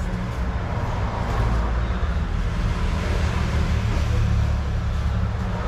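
Steady low rumble of a vehicle in motion, with road noise, swelling slightly mid-way.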